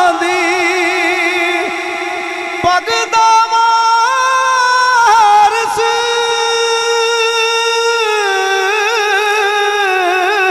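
A man singing a manqabat unaccompanied, drawing out one long melismatic phrase in held notes with a wavering vibrato. The pitch steps up twice in the first half and comes back down in steps through the second half.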